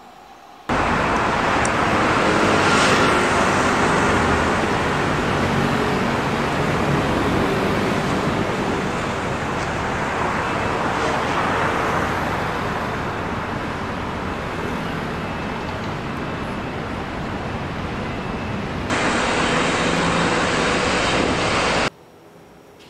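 Steady city street traffic noise that starts abruptly and cuts off abruptly near the end, with a sudden change in sound about 19 seconds in.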